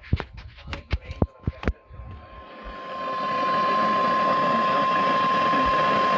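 A run of sharp clicks. Then a steady high alert tone comes up through radio static: the NOAA Weather Radio 1050 Hz warning alarm tone, played through a weather radio's speaker, which marks a warning broadcast.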